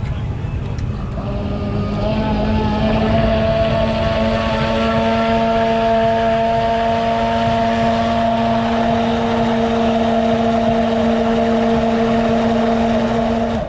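Hand-held immersion blender mixing beaten eggs in a plastic jug: its motor spins up about two seconds in, then runs with a steady whine and stops abruptly at the end.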